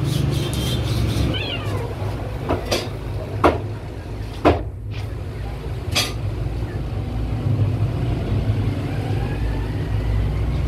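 A cat meows over a steady low background rumble, with a few sharp clicks.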